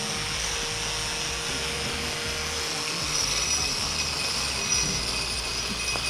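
Handheld grinder grinding down the uneven concrete on top of a cinder-block wall: a steady, high grinding hiss and whine.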